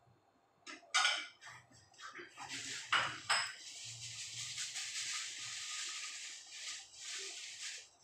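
Ceramic plates and bowls clattering as they are handled, with sharp clinks about a second in and twice around three seconds in, followed by a steady hiss lasting about four seconds.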